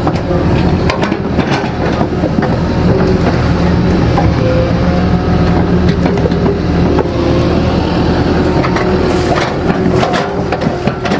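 Excavator's diesel engine running steadily under load, with a steady whine above it and scattered knocks and scrapes from the bucket digging.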